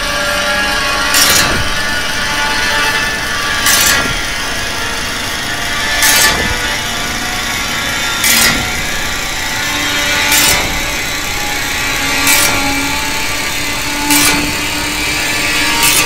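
Loud, dense wash of noise with a short surge of hiss about every two seconds, over faint held tones that drift in pitch.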